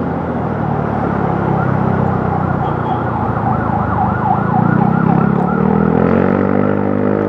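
Motorcycle engine running at low road speed, its note climbing near the end as it pulls in. Through the middle a siren yelps in the traffic, its pitch swooping up and down about three times a second.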